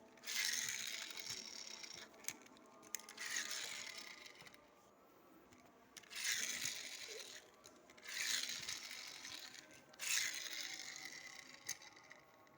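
Toy MotoGP motorcycle making its sound five times, each a sudden hissing, whirring burst that fades over about a second and a half, with a few small clicks in between.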